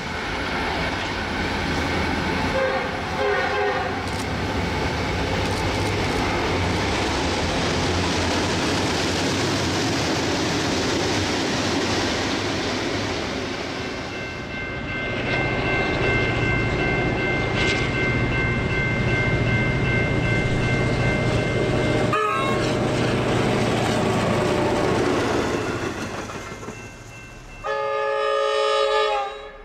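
EMD long-hood diesel locomotives hauling freight trains past at speed: diesel engine running with wheels rumbling over the rails. Near the end, an approaching locomotive sounds its horn in one chord-like blast of about a second and a half.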